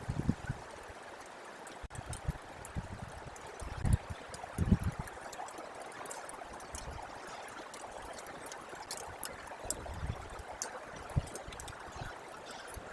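Steady trickle of running meltwater from thawing snow, with a few short low thuds and faint high ticks over it.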